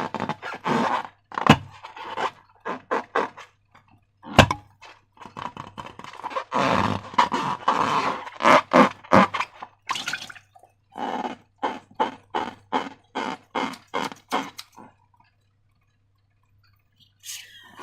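Slime being worked by hand: a run of irregular wet, sticky squishing noises with a couple of sharp clicks, stopping about fifteen seconds in.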